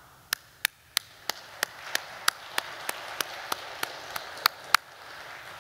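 Small congregation applauding: one person clapping close and loud at a steady three claps a second, with softer scattered clapping from others building behind it. The loud claps stop near the end while the softer applause fades out.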